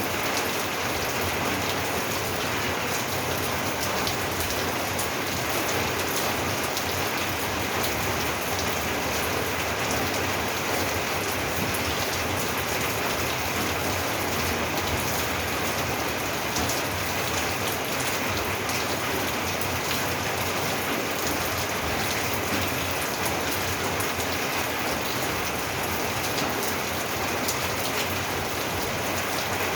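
Steady heavy rain falling on a roof, a dense, even patter of drops with no pauses.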